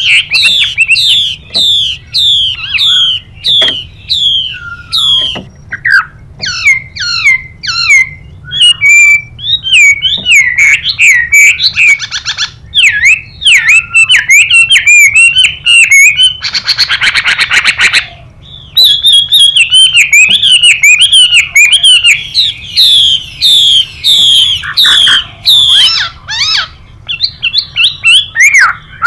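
Chinese hwamei singing a rapid series of clear whistled notes that slide downward, with a harsh buzzing rasp from a female hwamei briefly about 12 seconds in and for over a second around 17 seconds.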